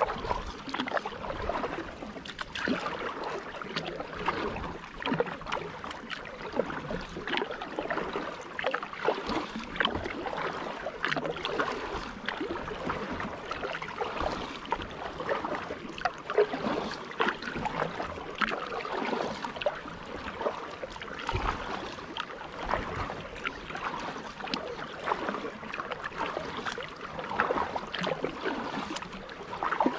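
Kayak paddle strokes in calm water: the blades dipping and pulling, with steady splashing, dripping and trickling close by and no even rhythm.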